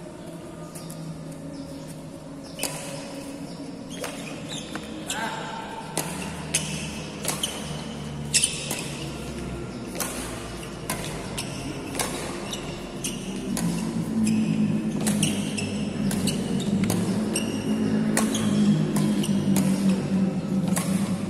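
Badminton rackets striking shuttlecocks again and again at an irregular pace in a large echoing sports hall. Under the strokes runs a low hum that gets louder about halfway through.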